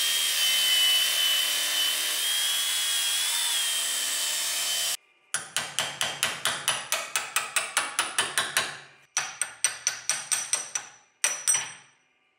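Angle grinder with a cut-off disc cutting through a steel Volvo S60 front wheel bearing hub: a steady high whine that sags and rises slightly, stopping suddenly about five seconds in. Then quick, regular metal-on-metal strikes, about four a second, in three runs with short breaks.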